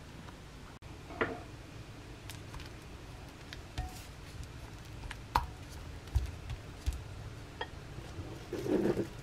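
Silicone spatula working softened butter in a ceramic bowl: soft scraping with a few separate taps and knocks against the bowl, and a short, louder sound near the end.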